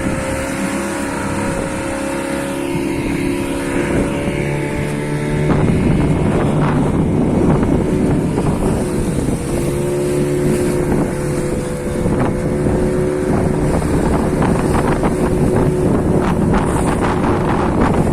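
A fishing boat's motor running, its engine note shifting a few times and growing louder about five seconds in, with wind buffeting the microphone.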